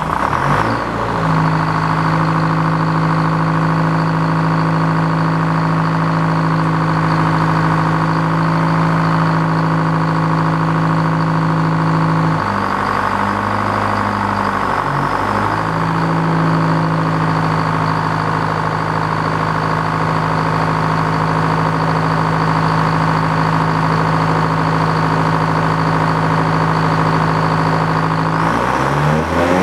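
Engine driving an antique Frick sawmill, running steadily just after being started. About twelve seconds in its pitch sags for a few seconds, as under load, then recovers, and it changes speed again near the end.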